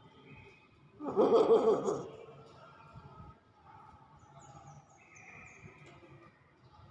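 Hill myna giving one loud call about a second long, about a second in, followed by a few faint high chirps.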